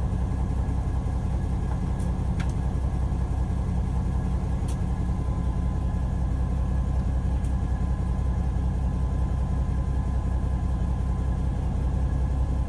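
Fishing boat's engine running steadily with a low drone, a faint steady whine above it and a few light clicks.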